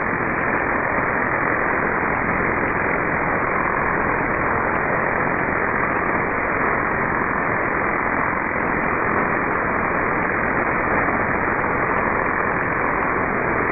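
Shortwave receiver noise in upper-sideband mode, with no voice on the channel. It is a steady hiss that cuts off sharply above about 2.5 kHz at the edge of the receiver's filter.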